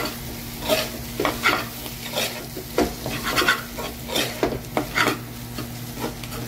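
Spoon scraping and stirring diced vegetables frying in oil in a steel pan: irregular strokes about twice a second over a light sizzle.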